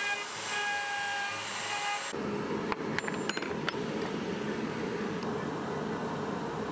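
Avid CNC router cutting a wood blank: the machine whines in steady tones that jump to new pitches as its moves change. About two seconds in this gives way to a steady low rushing noise with a few light clicks.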